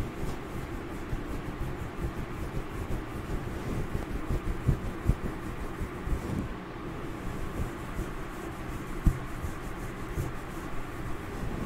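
Fingers scratching and rubbing a furry microphone cover close up, as a head-scratching ASMR effect. It makes a continuous scratchy rustle with irregular dull thumps.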